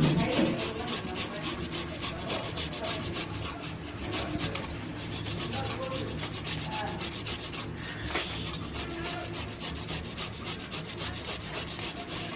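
Peeled bottle gourd grated on the fine side of a stainless-steel hand grater: repeated back-and-forth scraping strokes.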